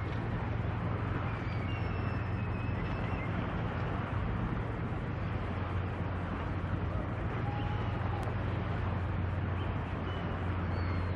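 Strong wind on the microphone as a steady low rumble and hiss, with a few faint short bird chirps about two seconds in and again later on.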